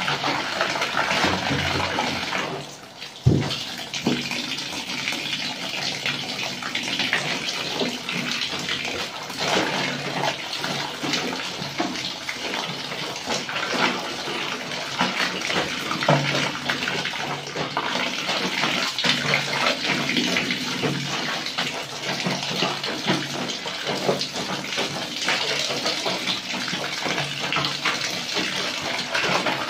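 Water running from a shower hose into a plastic washtub full of soapy laundry, with splashing and sloshing as bare feet tread the clothes. A sharp knock sounds about three seconds in.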